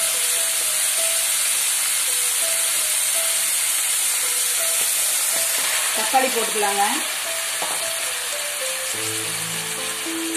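Shallots and green chillies sizzling in hot oil in an aluminium kadai, a steady frying hiss. There is a brief louder stretch about six seconds in, when chopped tomatoes are in the pan. Faint background music plays underneath.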